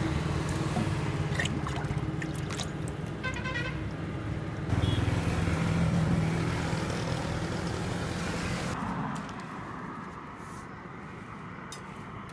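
Motor vehicle running close by, its low engine rumble swelling about five seconds in and fading away about nine seconds in, with a brief high tonal chirp about three seconds in.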